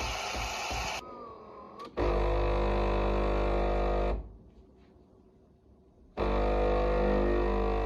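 Philips EP5144 LatteGo fully automatic espresso machine's vibratory pump buzzing steadily in two spells of about two seconds, with a much quieter gap between them. The first second holds a brief rhythmic rattle.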